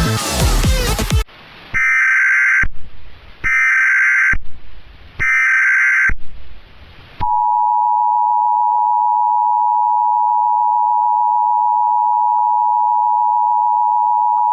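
Electronic dance music cuts off about a second in. Three short bursts of Emergency Alert System SAME header data tones follow, a harsh digital screech each time. Then the steady two-tone EAS attention signal begins and holds unbroken.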